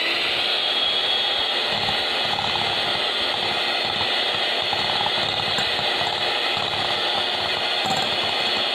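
Electric hand mixer running steadily on its lowest speed, its twin beaters creaming softened butter in a glass bowl.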